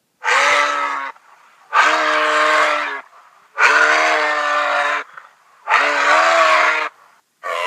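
An animal call sound effect: four long, even-pitched cries of about a second each, spaced about two seconds apart.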